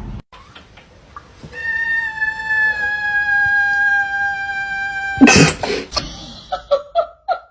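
A pet animal's single long call, held for almost four seconds and falling slightly in pitch. It is followed by a loud, brief noisy burst and a few short calls near the end.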